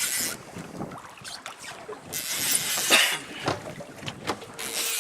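Open-water ambience on a small fishing boat: wind and water hiss that surges and fades in waves, with a few light knocks.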